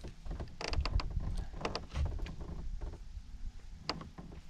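Scattered light clicks and knocks from a spinning rod and reel being handled on a fishing boat's deck while jigging, a cluster about a second in and another near the end, over a low rumble.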